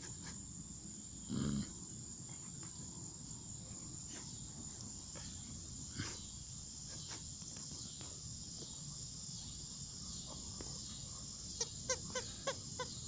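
A dog chewing a squeaky plush toy: near the end the squeaker gives a quick run of five or six short squeaks. Underneath, insects chirr steadily, and about a second and a half in there is one brief low sound.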